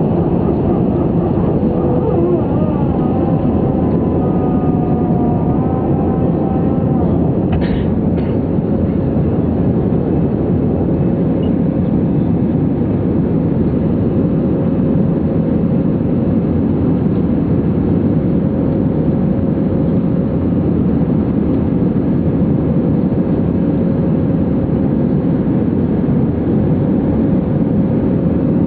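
Airbus A319 cabin noise over the wing during the takeoff climb, with the jet engines running steadily at high thrust. Faint whining tones shift in pitch during the first several seconds, and a brief click comes about eight seconds in.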